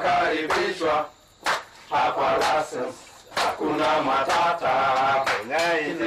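A group of men chanting and singing together in short phrases with brief pauses between them, punctuated by sharp hand claps; a longer gliding sung line comes in near the end.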